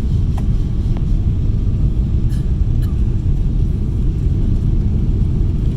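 Steady low rumble of a Boeing 777's engines and airflow, heard inside the passenger cabin on the descent to landing.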